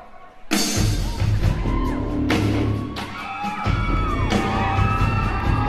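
Live band music: after a brief dip, the band comes in about half a second in with heavy drum hits every second or so over a low bass groove, with sliding high tones above.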